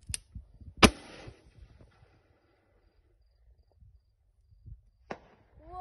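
A single loud shot from a rifle firing an illumination grenade skyward about a second in, followed by a short rushing hiss; a faint click comes just before it and another near the end.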